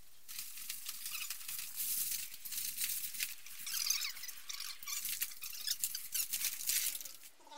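Flexible aluminium foil ducting crinkling and crackling with many small ticks and a few squeaks as it is handled and pulled into place.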